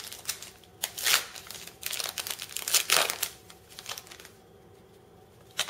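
Foil wrapper of a 2008 Press Pass basketball card pack being torn open and crinkled as the cards are pulled out, in irregular bursts of crackling for about four seconds. It goes quiet, then a single short crackle comes near the end.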